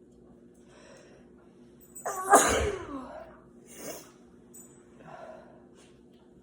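A single loud sneeze about two seconds in, after a short in-breath, with the voice falling in pitch through it, followed by a couple of softer breaths.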